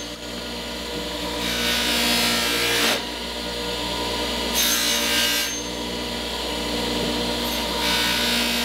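Bench grinder motor running steadily, with an adze edge pressed against the spinning wheel three times, each a rasping hiss lasting one to one and a half seconds. The pressing works the burr (wire edge) off the adze's edge.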